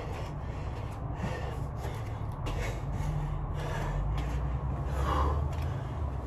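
A man breathing hard, with short forceful exhales roughly once a second, from the strain of lunges in a weight vest. A steady low hum runs underneath.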